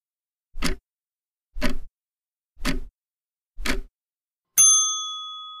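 A ticking-clock sound effect counting down the answer time, one tick a second. Near the end a bell dings once and rings on, fading, marking time up.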